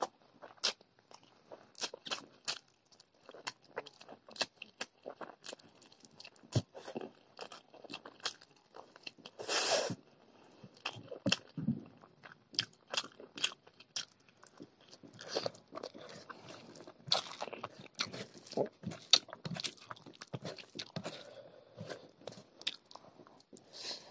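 Close-miked eating of chicken curry and rice by hand: wet chewing with frequent sharp mouth clicks and lip smacks, and a longer noisy bite or slurp about ten seconds in.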